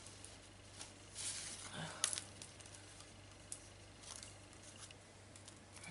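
Paper and thin cardstock die-cuts handled and shuffled on a table: faint rustling with a few light clicks and taps, the sharpest about two seconds in.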